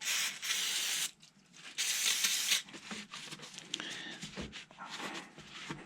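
Aerosol can of brake cleaner spraying in two bursts, the first about a second long and the second a little shorter, followed by quieter rustling and small clicks.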